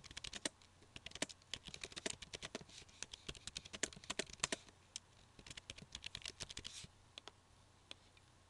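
Typing on a computer keyboard: quick keystrokes in bursts for about seven seconds, then a few scattered clicks near the end.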